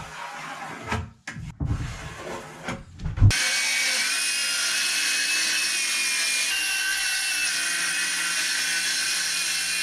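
Pencil scratching along a square while a board is marked out. About three seconds in, a handheld power saw starts up and runs steadily, cutting through the board.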